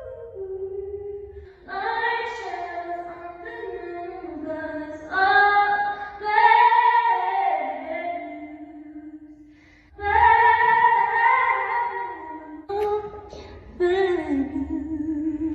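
A woman singing solo in phrases of quick melodic runs, with vibrato on her held notes.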